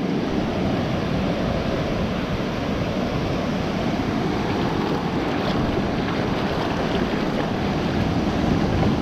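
Ocean surf washing in over shallow sand, a steady rush of breaking waves and foam.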